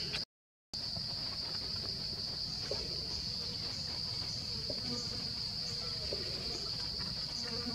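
Steady, high-pitched drone of an insect chorus, cutting out for about half a second just after the start.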